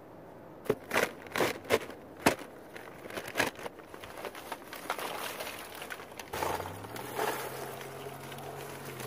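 Several sharp knocks, then a paper sack of lump charcoal crinkling and rustling as it is handled and tipped, with the charcoal lumps clattering as they pour into a pit dug in sand.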